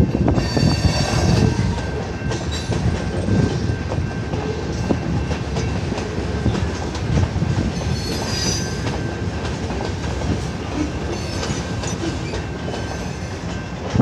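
Freight train cars rolling past at a grade crossing: steady rumble of steel wheels on the rails with clicking over the rail joints. Brief high-pitched wheel squeal comes in about half a second in and again around eight seconds.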